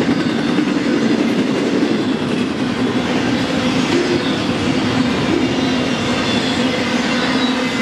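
Double-stack intermodal well cars rolling past at steady speed: steel wheels running over the rail joints, with a steady low drone.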